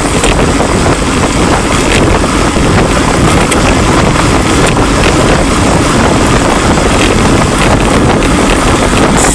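Loud, steady wind noise buffeting an action camera's microphone on a road bike travelling at about 20 to 28 mph.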